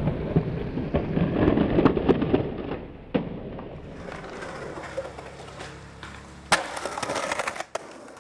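Skateboard wheels rolling and scraping on concrete, with scattered clacks of the board. There is a sharp crack about three seconds in and the loudest one, the board smacking the ground, about six and a half seconds in, followed by a second of rolling that stops abruptly.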